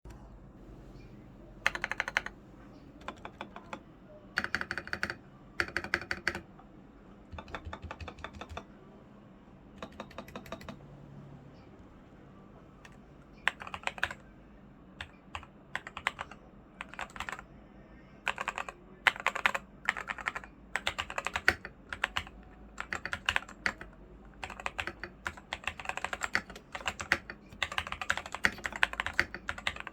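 Typing on a mechanical keyboard: unlubricated AKKO CS Sponge tactile switches under XDA-profile keycaps, in an LX980 kit with foam mods. Short flurries of keystrokes with pauses between them, turning into near-continuous fast typing in the second half.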